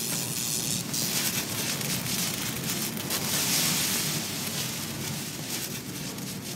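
Bale processor running and throwing shredded hay: a steady rushing, crackling hiss over a low machine drone.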